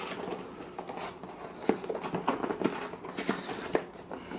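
Cardboard keyboard box being handled and opened: a string of irregular knocks, scrapes and rustles, busiest in the middle.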